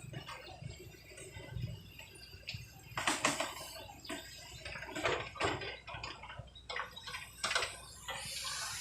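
Excavator working in a river: a low engine rumble under scattered sharp knocks and clatters from the digging, the loudest about three seconds in and again near the end.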